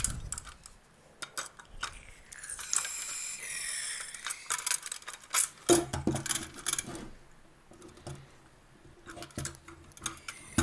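Clicks, clanks and clatter of metal parts being handled as a burner head is fitted onto a small gas canister for a portable gas heater, with a brief hiss about a third of the way in.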